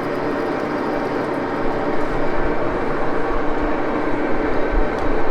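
Axelson lathe running, a high-speed steel parting blade cutting off a soft-steel part under power feed: a steady machine hum with gear tones, the low rumble growing a little louder about two seconds in, and a small tick near the end.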